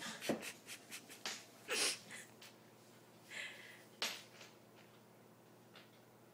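Two cats play-fighting on a wooden parquet floor: a run of short scuffles, breathy puffs and clicks, busiest in the first two seconds, with a sharp click about four seconds in.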